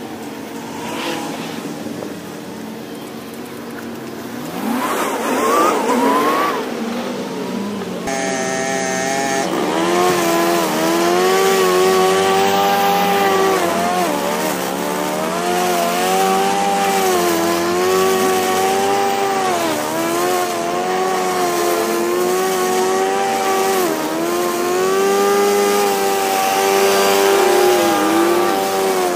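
Gas walk-behind lawn mower engine running, then cutting thick, overgrown grass from about 8 seconds in, its pitch dipping and recovering every couple of seconds as the engine bogs under the load.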